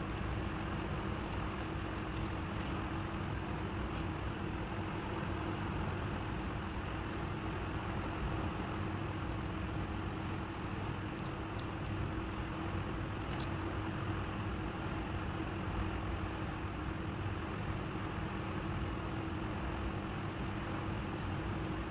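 A steady low hum over even background noise, with a few faint light clicks.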